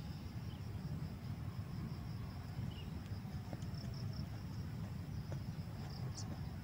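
Insects trilling steadily at a high, even pitch over a low rumble, with a few faint short chirps.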